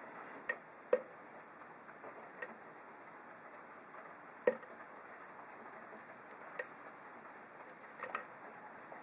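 A handful of small, sharp, irregularly spaced clicks from a hook pick working the pin stacks of an ASSA SCD 7-pin oval lock cylinder under tension, with a close pair near the end. The loudest click comes about halfway through.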